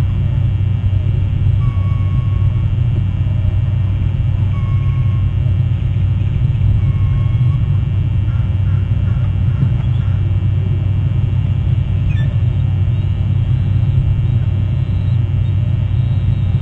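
Steady low rumble on the outdoor nest-cam microphone. Over it, faint short bird calls repeat three times in the first half, each about half a second long.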